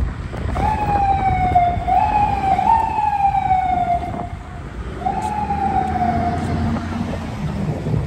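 Emergency vehicle siren sounding in a city street: a wavering tone that jumps up and slides down, three times in quick succession starting about half a second in, then once more about five seconds in, over a steady low traffic rumble.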